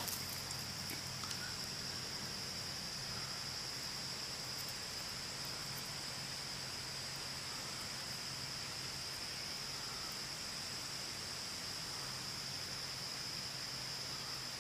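Steady high-pitched insect chorus holding one pitch over a bed of hiss, with a faint low hum beneath.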